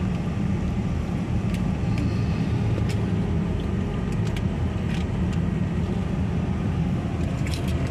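Steady road and engine noise heard inside a moving car's cabin, a low even rumble, with a few faint clicks here and there.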